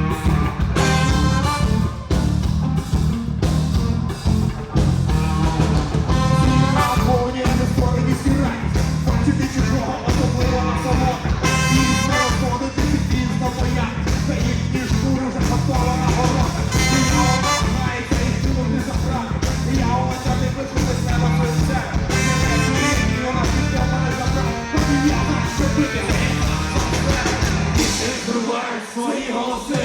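Live rock band playing loud, with electric guitars, bass and drums. The bass and drums drop out for a moment near the end, then come back in.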